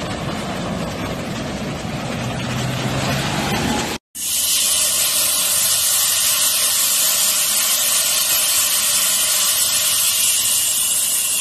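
For about four seconds, a steady rush of fast-flowing floodwater as a pickup truck drives through it. Then, after a brief cut, a loud steady hiss of compressed air from an air line inflating a large tractor tyre.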